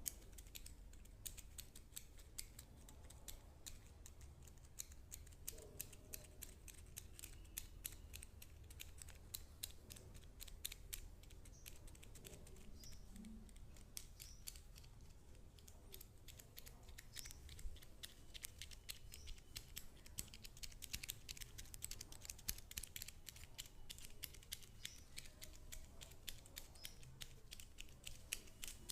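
Faint, rapid, irregular clicking, several clicks a second, over a low steady hum.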